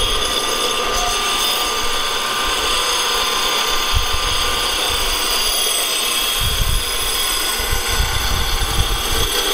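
Combination belt and disc sander running, its sanding disc grinding a metal exhaust flange flat: a steady grinding noise over a constant motor whine.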